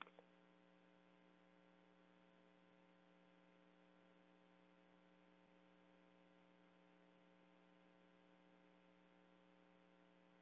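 Near silence: a faint, steady electrical mains hum, with a couple of tiny clicks at the very start.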